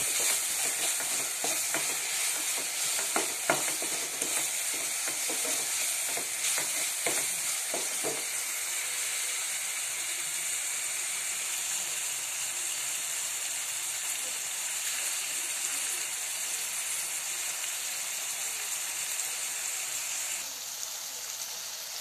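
Chopped onion and tomato sizzling steadily in hot oil in a kadai, with a few sharp taps and scrapes of the stirring spoon against the pan in the first several seconds. The tomatoes are being sautéed until they soften and mash down.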